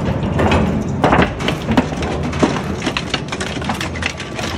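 Twin-shaft shredder's hooked cutters grabbing and tearing a thin sheet-metal container, with a steady rumble under a rapid run of sharp cracks and crunches as the metal crumples and rips.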